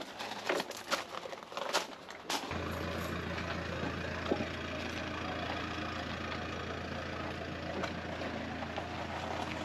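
A few sharp clicks and knocks, then an engine idling steadily with a low hum from about two and a half seconds in.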